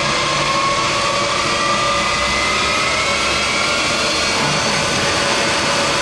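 ACER E-Lathe spindle and drive running under constant surface speed control, with a whine that rises slowly in pitch as the spindle speeds up.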